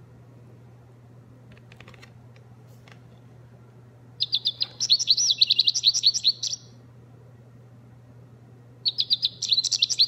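Recorded American goldfinch song played from the sound-button panel of a children's bird-song book: a run of high, quick trills and warbles lasting about two and a half seconds, starting about four seconds in and playing again near the end.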